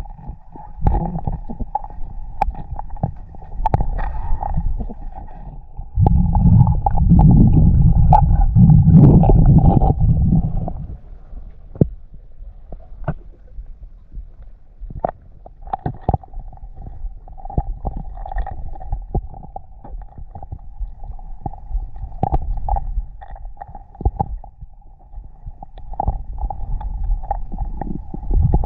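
Muffled underwater sound from a spearfishing dive: low rumbling and gurgling water with scattered clicks over a steady hum. The rumble grows much louder from about six seconds in and drops back about four seconds later.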